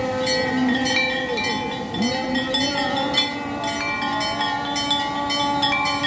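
Many bells ringing together during an aarti, struck over and over so that their ringing tones overlap in a continuous jangle.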